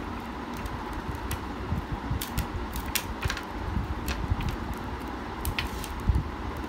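Eating by hand: fingers pinching up the last rice off a ceramic plate and chewing with mouth clicks, heard as a string of short irregular clicks. A steady low hum runs underneath.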